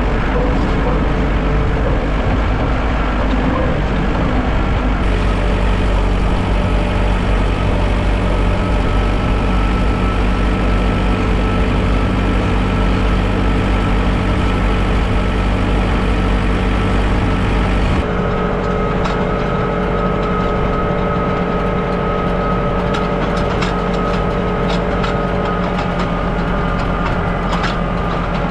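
John Deere tractor engine running steadily, with a deep low hum. The sound shifts abruptly twice, about five seconds and eighteen seconds in, and light clicking joins it in the last third.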